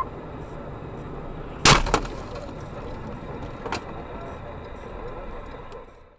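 A vehicle collision: one loud sharp crash with cracking, about two seconds in, over steady road noise. A smaller knock follows about two seconds later, then the sound fades out.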